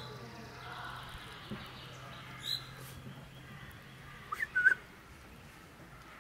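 Birds calling: two brief high chirps, then three short, louder calls about four and a half seconds in.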